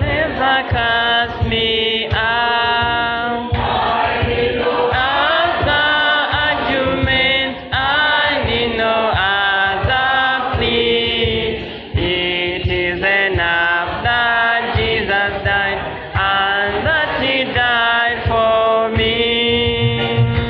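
A hymn sung with instrumental accompaniment, with a steady low beat under the voices.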